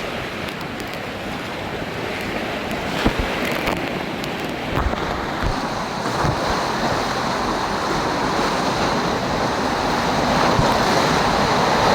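Rushing, splashing water of a water-park river rapids ride, heard from on the ride, with some wind on the microphone. The water grows louder toward the end.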